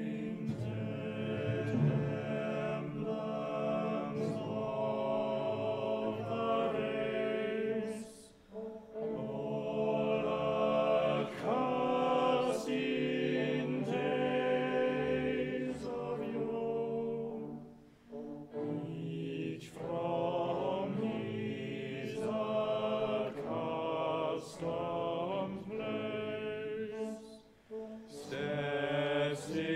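Male singing in a slow, solemn operetta number with orchestral accompaniment, in long held phrases separated by brief pauses.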